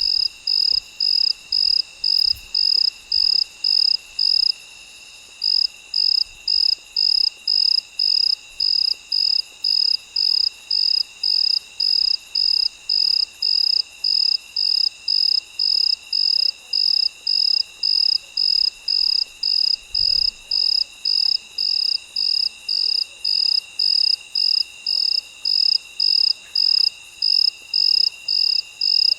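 A cricket chirping loudly in a steady rhythm of about two chirps a second, breaking off for about a second around four seconds in. Behind it, a continuous high trill of other night insects.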